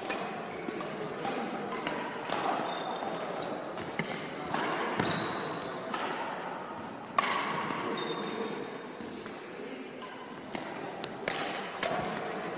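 Badminton play in a large sports hall: sharp racket strikes on the shuttlecock every second or so, irregular, and short high squeaks of shoes on the court floor, echoing in the hall.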